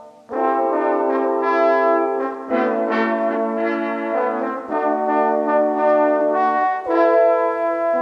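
Several overdubbed French horn parts play sustained notes together in chordal harmony. They enter after a brief pause at the start, and the chord changes about every two seconds.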